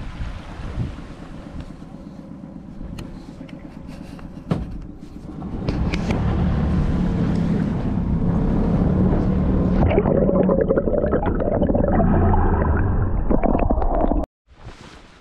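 Small tour boat under way: its motor running with water churning past the hull, and wind buffeting the microphone. It grows louder about a third of the way in and cuts off suddenly near the end.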